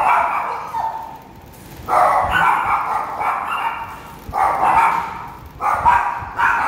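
Dogs barking in four quick runs of several barks each, with short pauses between the runs.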